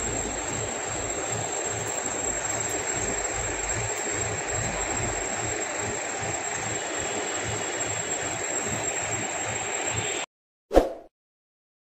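Hydra pick-and-carry crane's diesel engine running steadily at a worksite, heard as a constant noisy drone with a low rhythmic pulsing. It cuts off abruptly near the end, followed by a brief swish.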